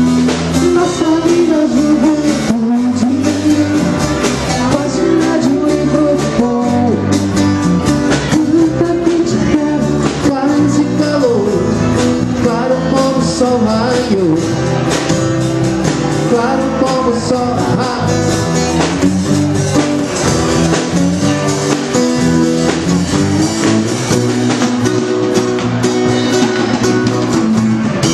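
Live band music: a twelve-string acoustic guitar strummed along with other instruments, and a singing voice carrying the melody.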